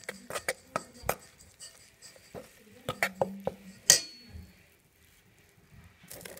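Metal spoon stirring flour in a stainless steel mixing bowl, knocking and scraping against the bowl in irregular clicks. One sharper clink about four seconds in rings briefly, and the stirring goes quieter after it.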